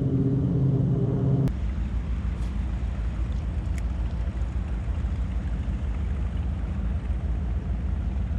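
Motorboat engine noise on a busy waterway: a steady engine hum that stops abruptly about a second and a half in, leaving a low, steady rumble.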